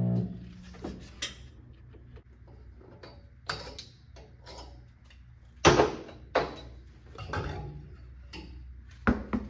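A wheel balancer's hum cuts off right at the start. Scattered knocks and clacks of parts being handled follow, the loudest a little past halfway.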